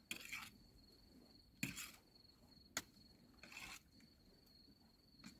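Faint, steady cricket trill, with a few soft rustling handling sounds and one sharp click as raw fish pieces are moved about on a metal plate.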